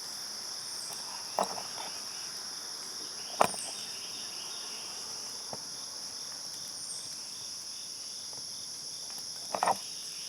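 A steady chorus of insects in woodland, a continuous high buzz at two pitches. A few short sharp clicks or knocks cut through it: one about a second and a half in, the loudest about three and a half seconds in, and a quick pair near the end.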